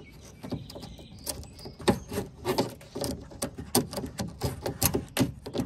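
Irregular small clicks and ticks, several a second, as a knife blade pries shattered glass pieces out of a truck door's window track and they drop and clink inside the door.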